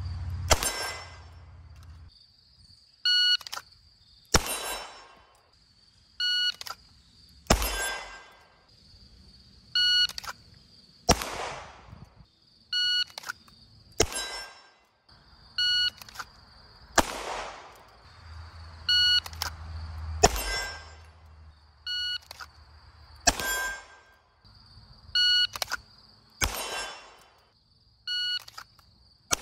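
A shot timer beeps, and about a second later a CZ Shadow 2 pistol fires a single shot, followed by a ringing clang from the steel target. The beep-and-shot pair repeats about every three seconds, around nine times in a row.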